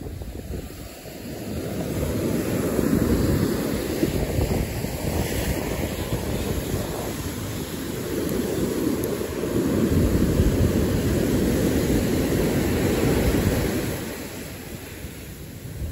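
Ocean surf breaking and washing up a sandy beach, mixed with wind rumbling on the microphone. The rumble swells about two seconds in and again around ten seconds, then eases near the end.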